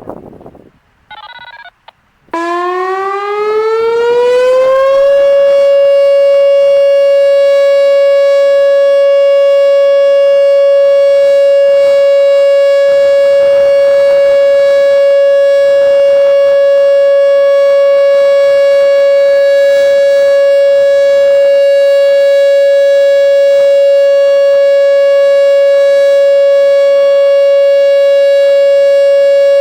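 Whelen WPS-2905 electronic warning siren sounding its steady Alert signal, the tornado-warning tone. It starts about two seconds in, glides up in pitch for a few seconds, then holds one steady tone at about 560 Hz.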